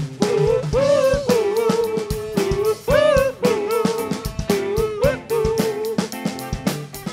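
Live rock band playing an instrumental passage: drum kit and bass under a lead melody line that bends up in pitch and holds, over about six seconds.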